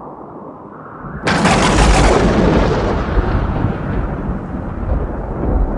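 Sound effect for an animated logo: a low rumble, then a sudden loud boom about a second in that carries on as a long, slowly fading rumble with a deep low end.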